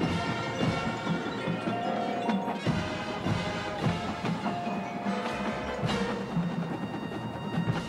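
High school marching band playing: brass, saxophones and flutes over drums, with mallet percussion and cymbal from the front ensemble.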